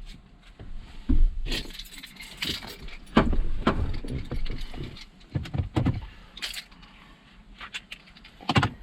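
Irregular knocks, clicks and light metallic rattles of things being handled while working on a truck, with no steady engine sound.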